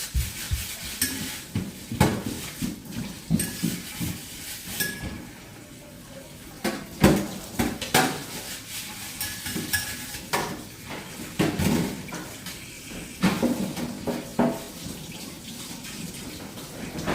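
Irregular clinks and clatters of hard objects being handled and set down, some with a short ringing note, spaced a second or so apart.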